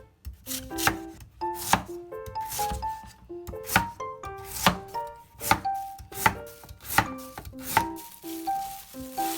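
A kitchen knife cutting food on a cutting board, one stroke about every second, over light plucked background music.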